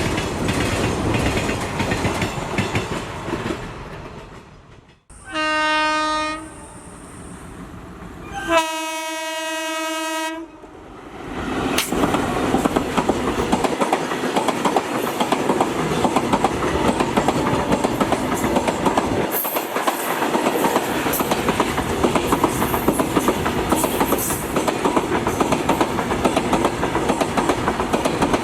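Freight train of oil tank wagons and covered goods wagons rolling past, its wheels clattering over the rail joints. About five seconds in the rolling noise cuts off and a locomotive horn sounds twice, a short blast and then a longer one, before the loud, rapid clickety-clack of the wagons takes over again.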